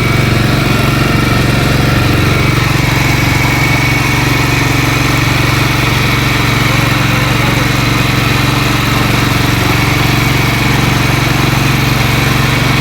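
Boat engine running steadily at an even speed, a constant low drone with no changes in pitch.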